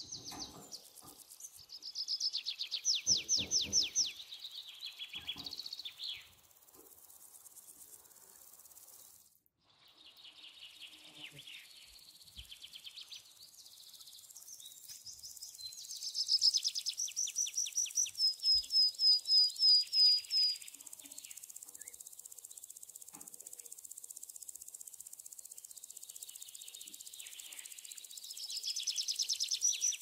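Budgerigars chirping in fast, trilling runs of repeated high notes, coming in bursts: loudest around three seconds in, from about sixteen to twenty seconds, and again at the end.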